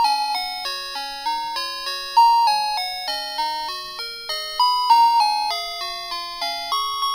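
Background music: a bell-like melody of single struck notes, about three a second, each ringing and fading before the next.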